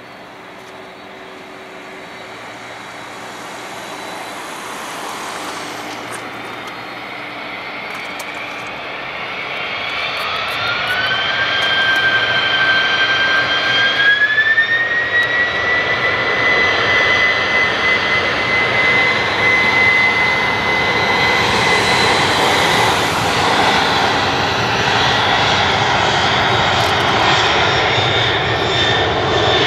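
Boeing 767-300 freighter's twin jet engines spooling up to takeoff power, growing steadily louder, with a whine that rises in pitch about ten seconds in and again about fourteen seconds in, then holds steady under a loud, even engine noise as the aircraft accelerates past.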